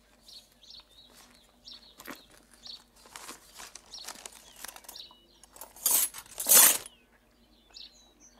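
A paper wrapping rustled open around a bundle of metal lockpicks, which clink together, with the loudest crackle of paper about six seconds in. Small birds chirp throughout.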